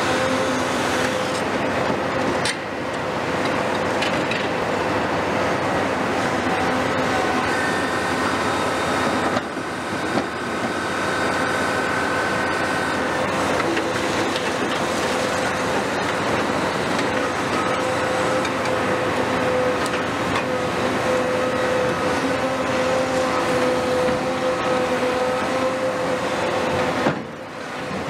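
Heavy crawler excavators at work: a steady diesel engine drone with a constant hydraulic whine over it, and a few short knocks.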